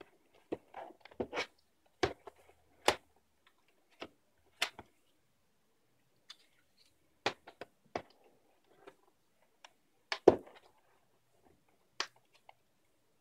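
Sharp plastic clicks and knocks of an HP Pavilion dv6 laptop being handled: the closed laptop is turned over and set down on the desk, its battery is unlatched and pulled from its bay, and the laptop is turned back. The loudest knock comes about ten seconds in.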